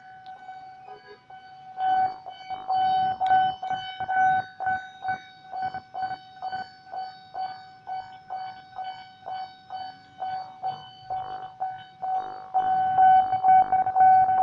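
Railway level-crossing warning bell ringing: a steady electronic tone pulsing about twice a second, the signal that a train is approaching. Louder traffic noise joins it near the end.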